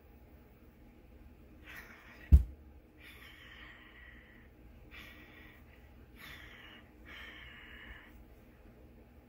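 A single heavy, low thump about two seconds in, the loudest sound, among soft scratchy strokes of about a second each, several times over.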